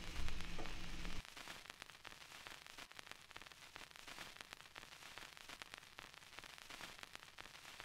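Low room tone with a steady hum for about a second, then it cuts off abruptly to a faint static hiss with light crackling clicks.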